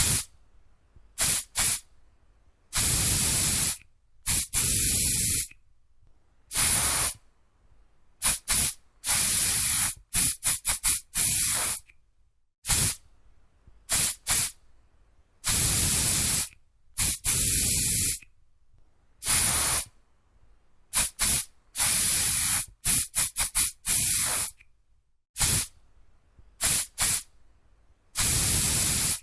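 Aerosol spray can spraying in a series of bursts, some short quick puffs and some held hisses of a second or two, with brief silences between.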